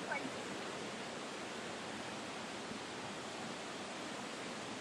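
Steady rush of falling water from a waterfall, an even hiss with nothing else standing out.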